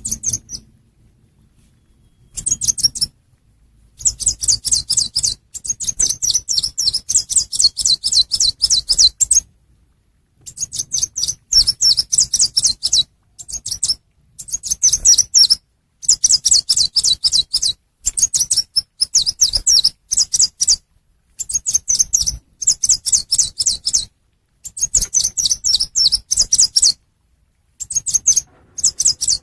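Lure recording of the chim sâu xanh, a small songbird: fast, high chittering trills in bursts of one to three seconds, separated by short gaps of dead silence where the recording is cut.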